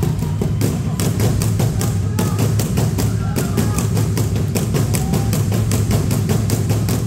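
Live South African folk music: drums beating a fast, steady rhythm, with voices over it.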